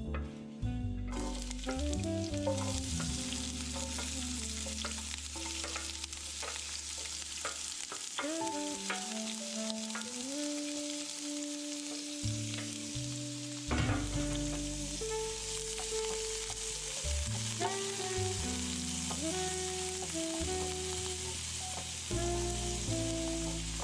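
Food sizzling in a frying pan while it is stirred, with scattered clicks and scrapes of the utensil against the pan; the sizzle starts about a second in and then holds steady. Background music plays underneath.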